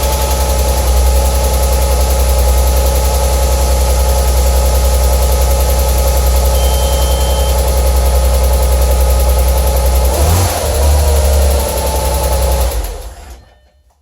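Audi B5 S4's 2.7-litre twin-turbo V6 running after being brought back from storage, with its accessory belt off. The engine note shifts about ten seconds in, then the engine stops and the sound dies away just before the end.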